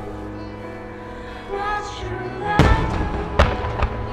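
Recorded music playing steadily while aerial firework shells burst overhead: three bangs about two-thirds of the way in, the first the loudest with a long rumble after it, then two sharper cracks.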